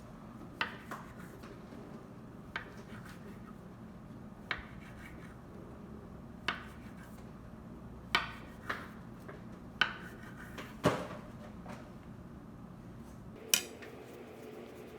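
Kitchen clatter: scattered knocks and clinks of dishes and utensils, about ten over fifteen seconds, over a steady low hum.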